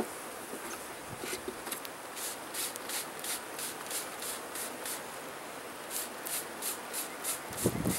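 Bee smoker's bellows pumped in quick, even strokes, giving short hissing puffs of air about three times a second.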